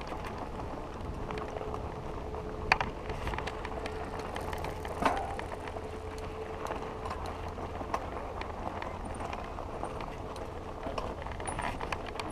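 Mountain bike rolling slowly over loose gravel: steady tyre noise with scattered small clicks and rattles from the bike, and two sharper knocks about three and five seconds in. A faint steady tone runs through the middle.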